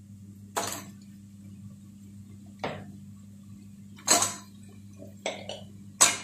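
Chopped goat leg pieces, bone in, dropped by hand into a pressure cooker: five short clatters against the pot, spaced a second or two apart, the loudest near the end.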